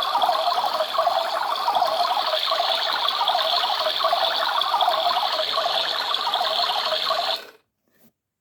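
Battery-operated toy washing machine running: its small motor and plastic gears make a steady whirring rattle as the drum turns with pretend water sloshing inside. It cuts off suddenly near the end.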